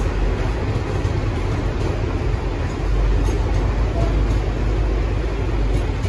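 Freight train of steel-coil flat wagons rolling past: a steady low rumble of wheels on rails, with a few faint clicks near the middle.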